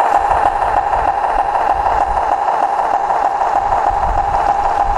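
Battery-powered garden-railway model railcar running along the track, its DALLEE sound card playing a diesel engine sound through a small onboard speaker: a steady, evenly pulsing engine note.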